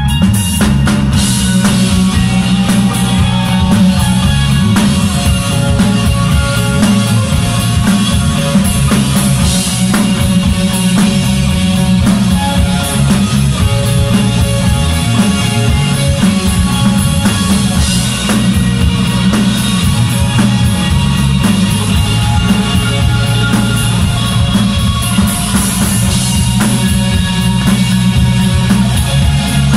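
Live rock band playing loudly: distorted electric guitar, electric bass and a drum kit with a steady beat, heard from the audience floor of a small club.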